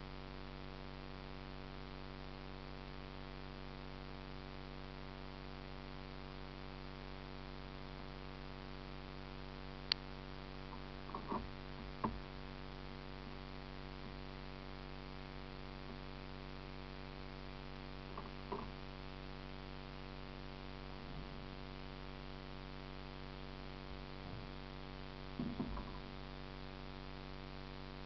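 A steady electrical hum made of several fixed tones, with one sharp click about ten seconds in and a few brief knocks later on.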